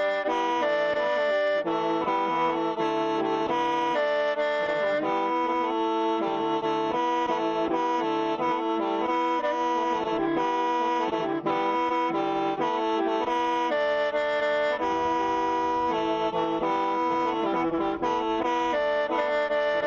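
Hmong qeej (khèn Mông), a bamboo free-reed mouth organ, played without a break: several reed notes sound together as a chord, the melody stepping to new held notes every second or so.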